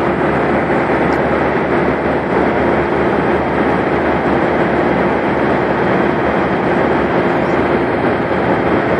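Semi truck's diesel engine idling: a steady, unbroken running noise with a constant hum.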